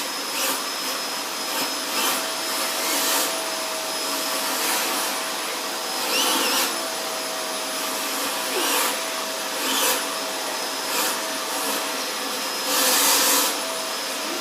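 Vacuum cleaner running steadily with a constant whine while its nozzle is drawn over a cat's coat. Its suction hiss surges briefly every second or two.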